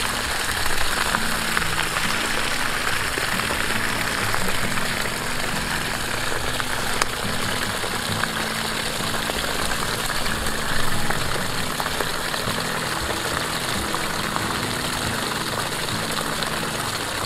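Water gushing steadily from a PVC pipe and splashing onto grass, making a continuous rushing hiss.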